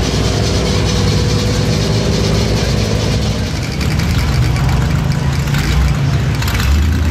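Motor vehicle engines running steadily in a low, continuous hum whose pitch shifts a little partway through.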